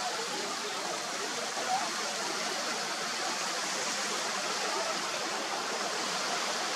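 Small waves washing up onto a sandy beach, a steady surf hiss.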